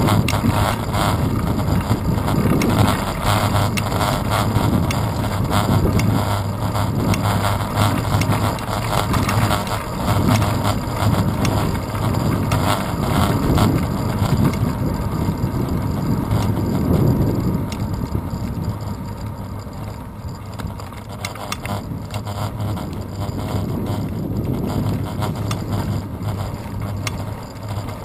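Riding noise from a road bicycle on asphalt, picked up by a handlebar-mounted GoPro Hero 2 in its housing. A steady rumble is laced with constant small rattles and knocks from road vibration, with some wind on the microphone. It eases off about two-thirds of the way through.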